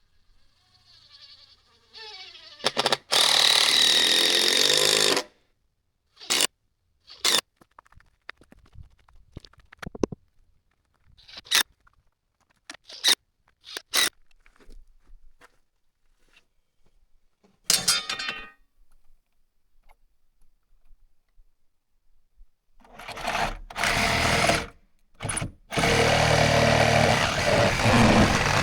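Loud bursts of machine noise, each cut off abruptly, with scattered sharp knocks and clicks in the quieter gaps between them.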